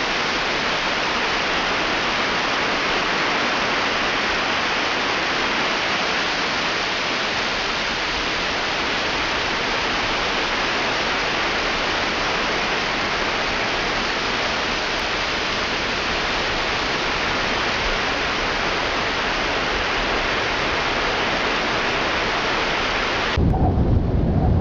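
Steady, even rushing hiss of a weather sound effect, with no distinct drops, gusts or pitch, holding unchanged. About a second before the end it cuts abruptly to a lower, hum-like sound.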